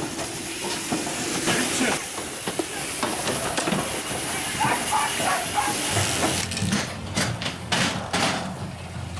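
Sheep-handling machine at work: steady hissing with scattered clanks and knocks. About six seconds in the hiss drops away, leaving several sharp knocks over a low steady hum.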